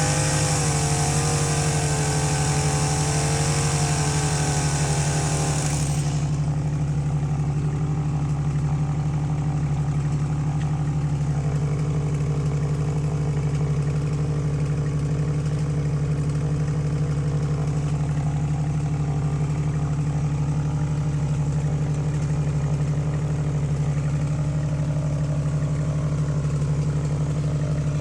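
Engine running steadily at a constant pitch. For the first six seconds a wavering higher tone and hiss sit over it, then the hiss cuts off suddenly.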